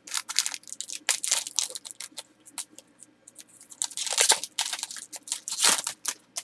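Trading-card pack and cards being handled: quick, irregular crinkling and rustling of the wrapper and card stock, loudest about two thirds of the way in.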